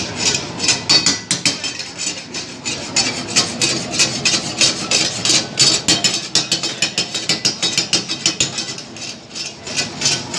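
Metal spatula scraping and clanking rapidly against a karahi wok as the dish is stirred hard over a gas flame, several strokes a second.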